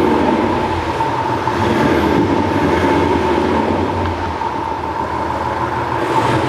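Thor active sound exhaust speaker playing its synthetic 'Hot Rod' engine profile: a loud, steady idle sound with a fast low pulsing and a constant tone above it.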